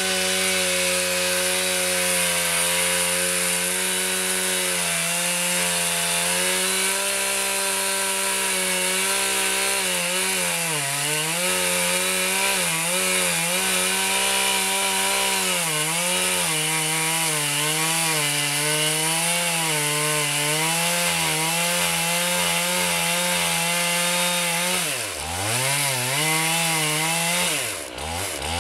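Stihl 461 chainsaw, a single-cylinder two-stroke, running at full throttle while making the felling back cut through a standing tree. The engine note holds steady at first, then wavers up and down as the chain loads and frees in the cut, and twice near the end drops sharply and revs back up.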